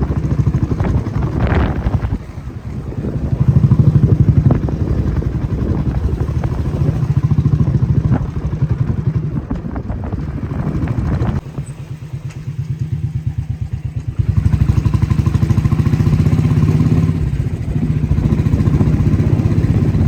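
A vehicle engine running on the move, its low pulsing rumble growing louder and quieter several times as it speeds up and eases off.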